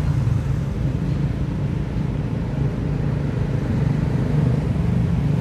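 Steady low rumble of an engine running, continuous and unchanging.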